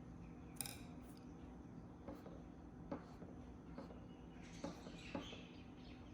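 Faint scattered clicks and taps with a soft scratchy brushing, from a paintbrush working paint on a small canvas.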